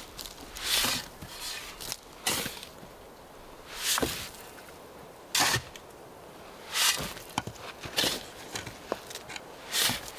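A metal blade digging into dry, sandy soil by hand: about seven scraping, crunching strokes, one every second or so, with small clicks of grit and pebbles between them.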